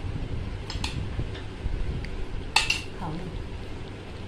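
A spoon clinking against a dish of curd while a child eats: a couple of light clicks, then a louder ringing clink about two and a half seconds in, over a steady low rumble.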